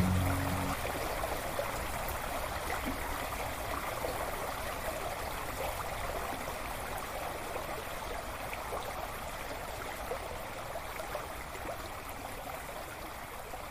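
Shallow creek running over stones and gravel: a steady rush of flowing water that grows slightly quieter.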